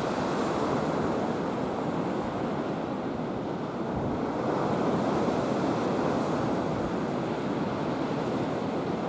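Steady rush of wind and choppy, whitecapped sea waves, with wind buffeting the microphone in low rumbles.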